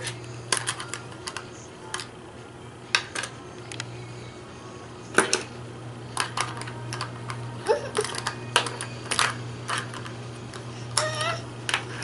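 Plastic magnetic building tiles clicking and clacking as they are handled and snapped together on a tabletop. The clicks are irregular and sharp, and the loudest comes about halfway through.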